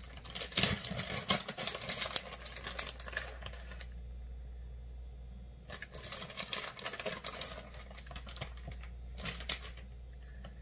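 Plastic bag of shredded cheese crinkling as a hand reaches in and sprinkles the cheese. It comes in two spells of dense crackling, the first about four seconds long and the second about two, with a short last rustle near the end, over a low steady hum.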